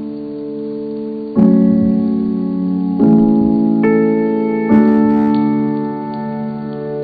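Background music: a keyboard playing slow, sustained chords, with a new chord struck four times, every second or so.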